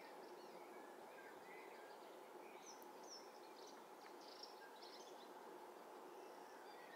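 Faint outdoor ambience: a steady low hiss with small birds giving several short, high chirps and twitters in the background, most of them in the middle seconds.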